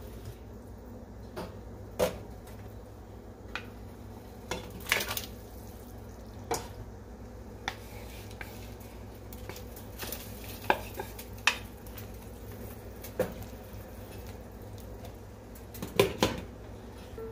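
Scattered clinks and knocks of kitchen dishes: a ceramic bowl and wooden spoon knocking as noodles are scraped from the bowl into a steel stockpot, over a steady low hum. Near the end a glass lid goes onto the stockpot with a double clatter, the loudest sound.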